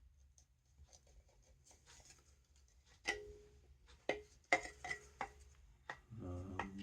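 Metal parts of a blower motor knocking and clinking together as they are handled and fitted, about six sharp taps in the second half, some with a brief metallic ring.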